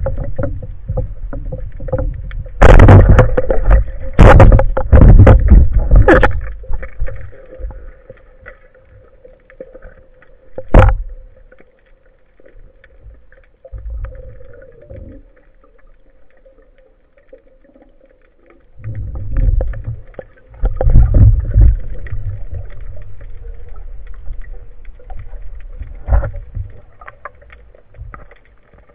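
Underwater water noise through the housing of a speargun-mounted camera as a freediver swims up toward the surface. There are loud surges of rushing water and bubbles a few seconds in and again about two-thirds of the way through, and a single sharp knock about eleven seconds in, over a faint steady hum.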